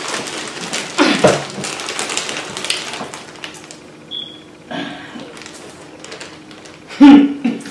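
Plastic bag of marshmallows crinkling and rustling as it is handled for the first few seconds, with scattered lighter crackles after. A brief voice sound about a second in and a short, loud, muffled voice near the end.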